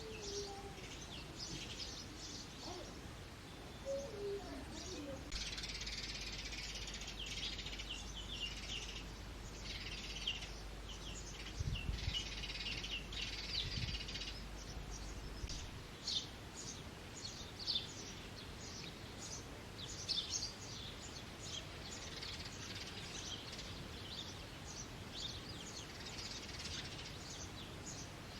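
House sparrows chirping: many short, high chirps, most crowded together in a dense spell for several seconds in the first half, then more scattered.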